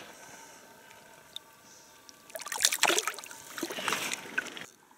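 Splashing in shallow river water as a small fish is let go from the hands and darts off: two bursts of splashing a little past halfway, the first the louder, then the sound cuts off abruptly just before the end.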